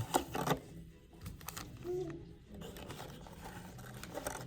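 Hockey card box packaging handled and torn open: a few short sharp rustling, tearing strokes at the start, then quieter rustling of the card packs.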